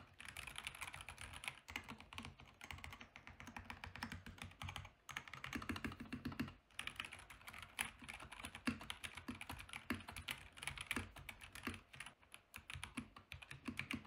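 Typing on a NovelKeys NK87 mechanical keyboard with silk yellow linear switches and silicone dampening pads, set on a cloth desk mat: a quick, continuous run of soft keystrokes with a few brief pauses. A nicely dampened sound, though the desk beneath still adds a drum-like resonance.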